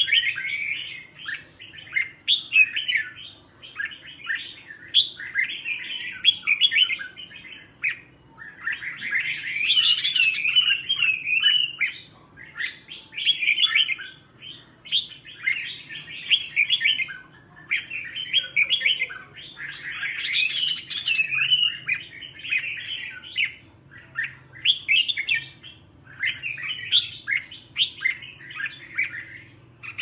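Red-whiskered bulbul singing: a long run of quick, chattering, warbling phrases with short pauses between them, and louder bursts about ten and twenty seconds in.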